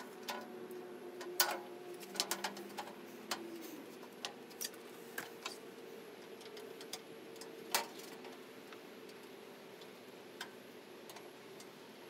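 Scattered light clicks and knocks of handling close to the microphone, the loudest about a second and a half in and again near eight seconds in, over a faint steady hum.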